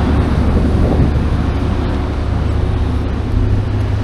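Steady low rumble of wind buffeting the microphone, over the noise of street traffic.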